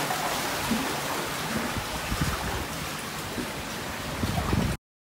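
Seawater surging and washing through a narrow rocky sea cave, a steady rush with uneven heavier swells, cut off abruptly just before the end.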